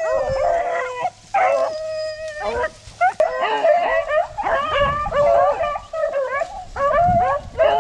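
A pack of beagles baying on a rabbit's track, several hounds' voices overlapping. There are long drawn-out howls in the first couple of seconds, then quicker, choppier barking.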